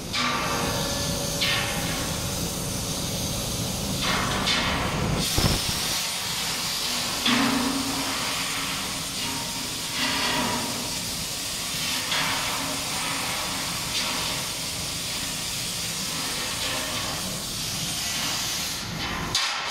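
Compressed air hissing from a long blow-off lance inside the cyclone of a powder-coating booth. It comes as a steady hiss with repeated louder blasts, blowing out the old powder for a colour change.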